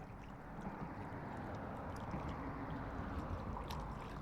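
Steady wash of lake water lapping at the shore, swelling slightly midway, with a few faint ticks.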